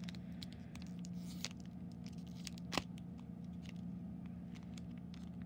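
Light clicks and crinkles of a Pokémon card booster pack and cards being handled, with one sharper click about halfway through, over a steady low hum.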